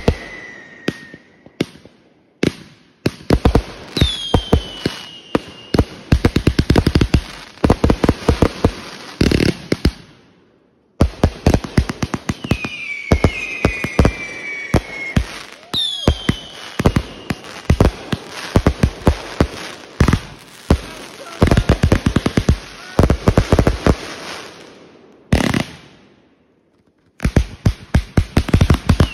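Consumer aerial fireworks firing in rapid volleys: a dense string of launch thumps, bangs and crackling bursts, with several whistles falling in pitch. The sound drops away briefly twice, about ten seconds in and again a few seconds before the end.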